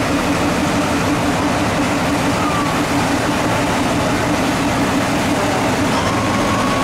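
Small diesel shunting locomotive idling with a steady low engine hum.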